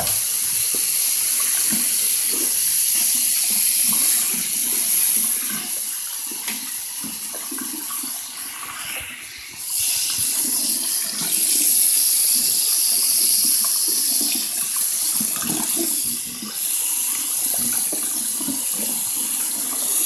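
Water running hard from a tap into a sink, with a brief dip about halfway through.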